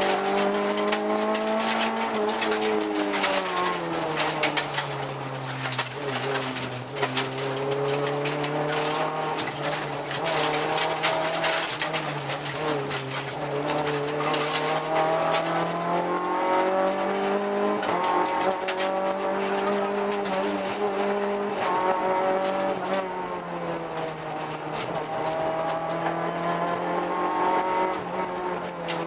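Rally car's engine heard from inside the cabin, driven hard along a special stage: its pitch repeatedly climbs under acceleration and drops on lifts and gear changes, with road and tyre noise over it.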